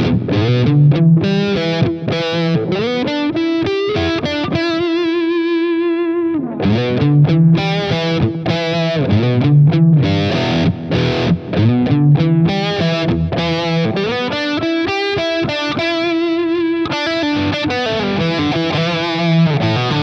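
Background music: distorted electric guitar playing with effects over a steady beat.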